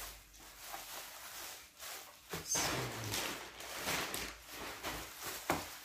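Plastic bubble wrap rustling and crinkling as it is handled and pulled off, with scattered crackles; it is busiest in the second half.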